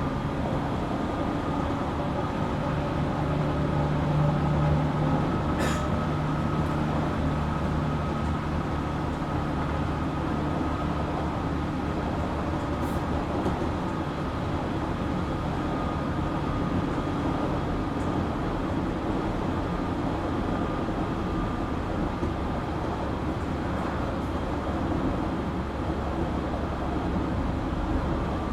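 Running noise of a JR Kyushu 817 series electric train heard from inside the car: a steady rumble of wheels on rail and traction equipment, with a few steady tones running through it.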